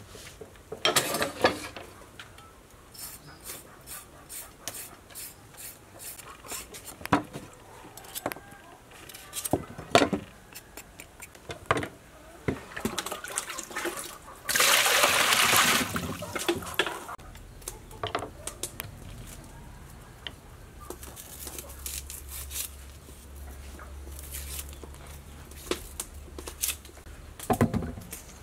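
Vegetables being handled and washed in a stainless steel bowl: scattered knocks and scrapes. About halfway through, water is poured into the metal bowl for about two seconds, followed by water and vegetables knocking in the bowl.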